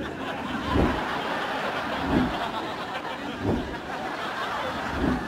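Studio audience laughter, with a dull thump about every second and a third, four of them in all.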